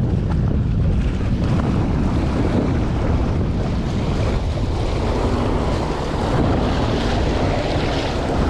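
Wind buffeting the microphone over the steady wash of ocean waves against a rock breakwall.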